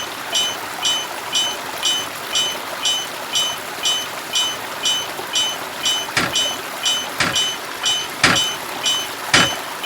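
Japanese railroad crossing alarm bell ringing its "kan-kan" at about two strikes a second. From about six seconds in, a heavier knock joins it about once a second.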